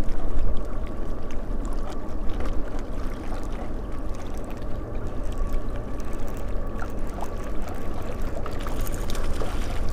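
Wind rumbling on the camera microphone and small waves lapping at a rocky shore, with a baitcasting reel being cranked in a steady retrieve and a faint steady whine throughout.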